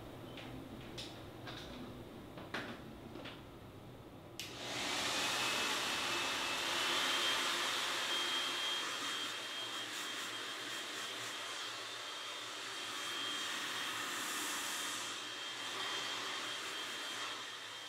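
A few light clicks and taps, then about four seconds in a handheld hair dryer switches on. Its motor whine rises in pitch for a couple of seconds and then holds steady under a rush of blowing air.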